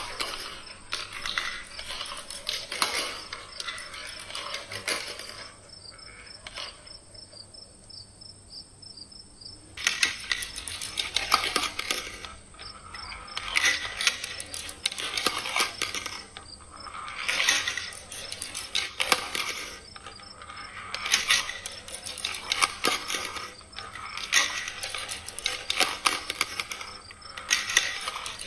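Marbles rolling and clattering down the plastic rail tracks of a marble run, in repeated surges of rapid clicks and rattles, with a quieter lull about six seconds in that ends near ten seconds.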